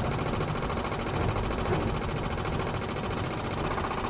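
SU electric petrol pump on a 1930s Morris 8 Series 1, chattering with rapid, steady clicks as it works to draw fuel up from the tank: still running fast and unprimed, before the float chamber fills and the clicking slows.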